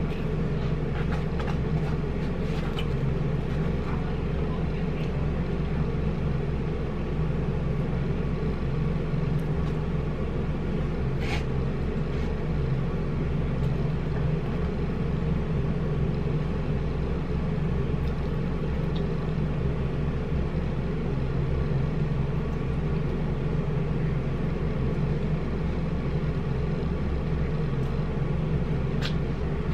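A steady low hum, with a few faint clicks of eating.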